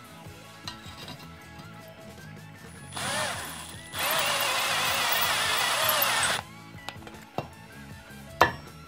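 Cordless drill driving a blue-coated Tapcon concrete screw into a hollow concrete block: a short burst at about three seconds, then about two and a half seconds of steady running that stops suddenly. Near the end comes one sharp hammer strike, tapping a plastic anchor into the block.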